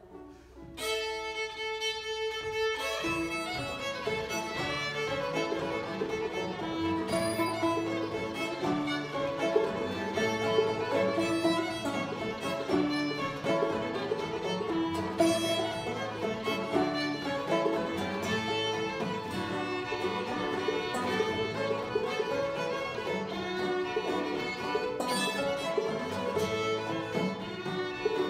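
Old-time string band of two fiddles, banjo and acoustic guitar playing an instrumental tune. It opens with a long held note about a second in, and the full band comes in about two seconds later and plays on steadily.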